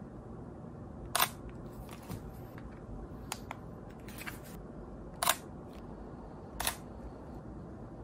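Mirrorless camera's shutter firing single shots: a sharp click every second or two, about five in all, over a low steady room hum.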